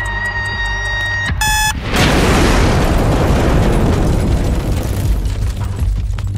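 Bomb timer sound effect ticking fast and beeping, ending in one short beep, then a loud explosion about two seconds in that rumbles on and slowly dies away.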